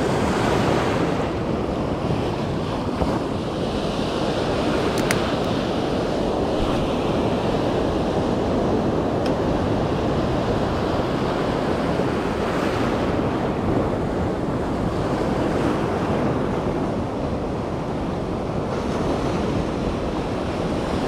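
Shallow ocean surf washing in and out around the feet, with wind on the microphone.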